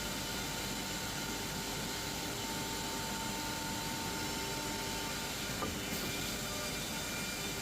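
Six-sided CNC panel drilling machine running in a workshop: a steady mechanical hum and hiss with a faint held whine that stops about five seconds in, and a couple of light clicks near six seconds.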